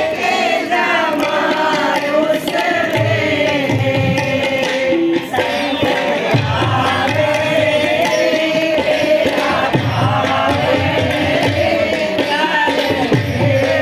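A group of women singing a devotional song together into a microphone, with hand-clapping and a drum keeping the beat.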